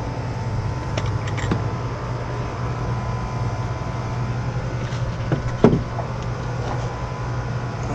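Steady low machine hum with a few short knocks and clicks from a car-type lead-acid battery being handled and worked loose at its terminals inside the generator enclosure. The loudest knock falls about two-thirds of the way through.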